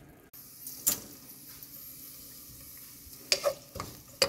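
Wooden spoon stirring and scraping chopped onion frying in awarma fat in a pan. A few sharp knocks of the spoon against the pan come about a second in and several more near the end.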